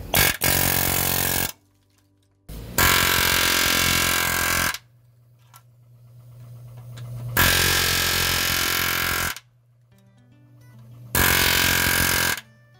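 Pneumatic air hammer with a chisel bit hammering against the outer metal sleeve of an old subframe bushing to collapse it out of its bore, in four bursts of one to two seconds with short pauses between.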